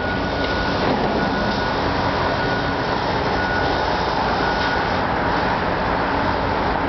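Steady urban rumble of engines and traffic around a construction site, with a faint high whine coming and going.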